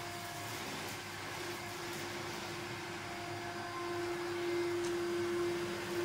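1982 Hitachi CV-7405 Stowaway Mk1 cylinder vacuum cleaner running while vacuuming carpet: a steady motor hum over the rush of suction, a little louder near the end.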